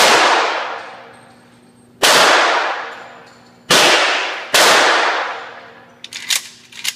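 Four loud gunshots echoing in an indoor range, each trailing off in a long reverberation. The first comes right at the start, the next about two seconds later, and the last two less than a second apart. A few lighter clicks of gun handling follow near the end.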